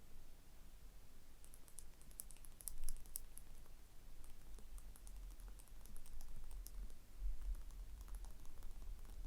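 Gentle tapping and scratching on a small hard object close to the microphone: rapid, irregular light clicks, busiest through the first half and thinning out near the end.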